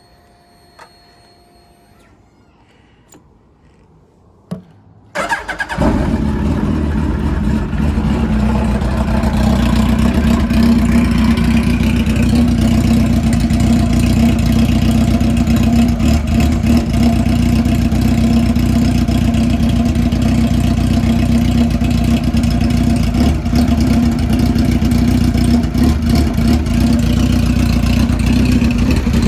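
A 2005 Suzuki Hayabusa's inline-four engine starts about five seconds in, on its first start after an oil change, and then idles steadily.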